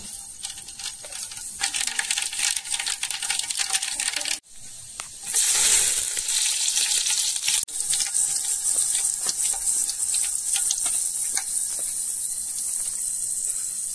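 Hot oil sizzling and crackling in a large aluminium pot as spices and curry leaves are fried. The sizzle turns louder and fuller about five seconds in.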